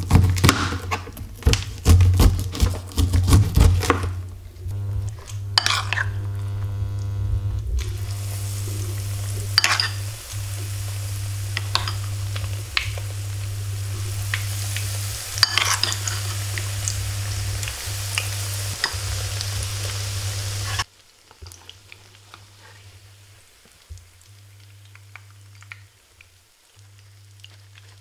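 A knife cutting corn kernels off the cob onto a plastic cutting board in quick strokes, then corn fritter batter sizzling as it fries in hot oil in a pan, over a steady low hum. About three quarters of the way through the sizzling drops suddenly to a much quieter frying.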